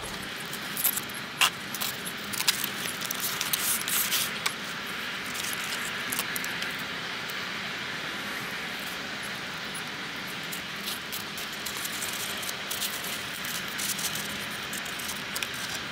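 Packaging being handled as a model locomotive is unboxed: a cardboard box opened and the small model lifted from its polystyrene tray, many light clicks and rustles over a steady hiss.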